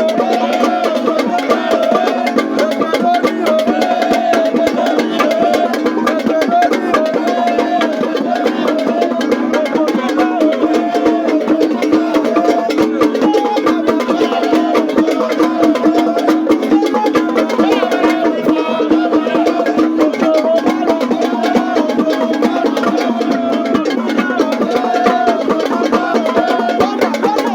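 Music with fast, steady percussion of sharp wooden-sounding clicks and drums under a wavering melody line.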